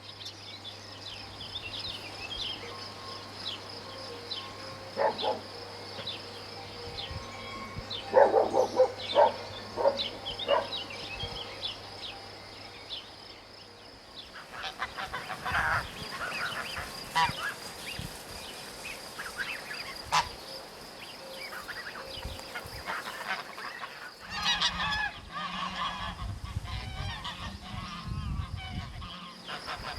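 Farmyard ambience of farm birds calling, with several louder bouts of calls over a steady background.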